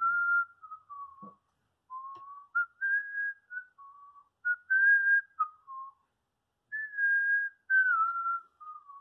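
A man whistling a tune, a single clear whistled melody in several short phrases of held and sliding notes with brief pauses between them.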